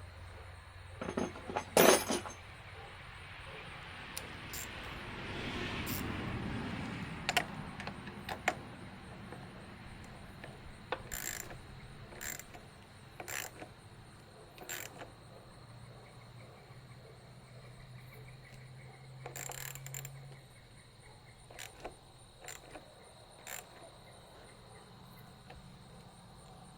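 Scattered metallic clicks and clinks of hand tools tightening a battery terminal, the sharpest about two seconds in. A soft rushing swell comes about five seconds in, and a faint low hum in the second half.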